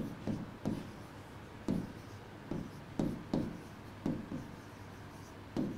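Stylus writing on a pen tablet: a run of short, irregular scratching strokes and light taps as handwriting is put down.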